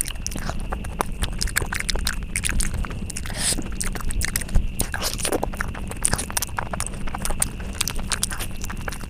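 Close-miked chewing and biting of food, with dense irregular crunchy clicks and smacks.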